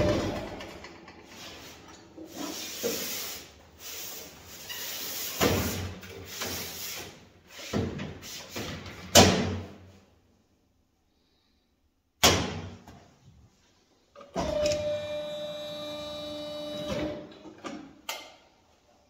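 Sheet-metal work on a stainless-steel plate: a series of metallic knocks and clanks with scraping, then a sustained ringing scrape for a couple of seconds and a final knock, as the folded-over edge is pressed flat.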